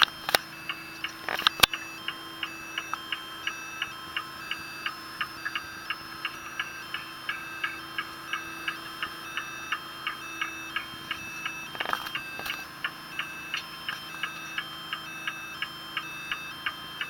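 Fishing sonar's audio output: short electronic beeps at a few stepped pitches, repeating evenly about two to three times a second, over a steady low hum.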